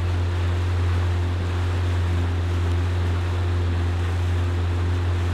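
Boat motor running at a steady speed under way, a deep even hum with fainter steady tones above it, over a hiss of wind and water.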